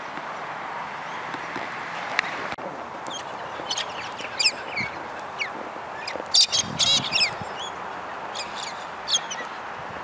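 Galahs (pink-and-grey cockatoos) in a feeding flock calling: scattered short, high screeches from about three seconds in, the loudest run of them about two-thirds of the way through. Steady background noise runs underneath.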